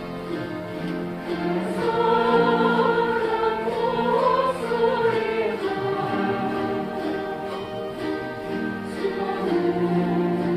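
Chromaharp ensemble (strummed chord zithers) playing a slow song, with a group of voices singing along from about two seconds in.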